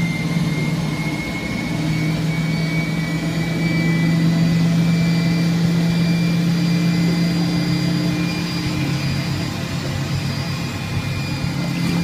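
Hoover Spinarinse 3012A spin dryer running with a load of towels: a steady motor hum with a high whine that rises slightly in pitch over the first couple of seconds as the drum gets up to speed, then holds steady.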